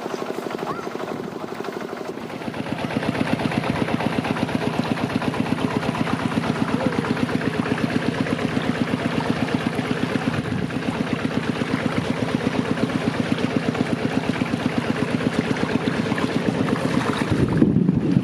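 Small engine running steadily with a rapid, even chugging beat, getting louder about two and a half seconds in.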